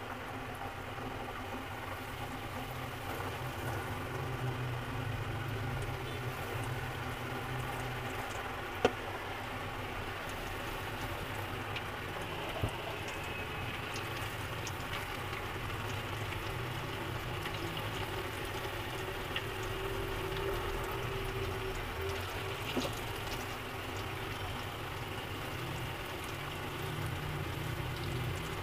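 Hot oil sizzling steadily as breaded chicken pieces deep-fry in an aluminium kadai, with a few sharp clicks.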